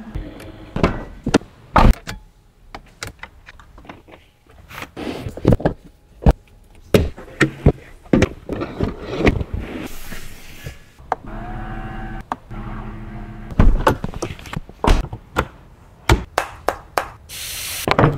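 Switches, trim and panels of a Mercedes-Benz W221 S-Class being worked by hand: a string of sharp clicks, knocks and thunks, with an electric motor whirring for about two seconds around the middle. A short hiss near the end as the boot lid is released.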